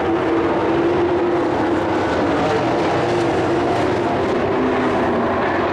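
Engines of several dirt-track race trucks running together around the oval, a steady, loud engine drone.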